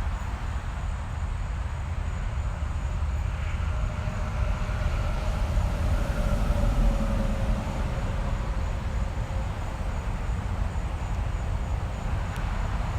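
Traffic noise: a steady low rumble of passing vehicles, swelling to its loudest about halfway through as one vehicle goes by with a faint whine.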